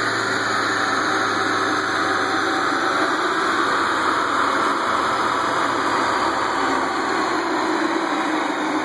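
Steady mechanical drone of dyno-shop machinery, with a faint high whine falling slowly in pitch across it.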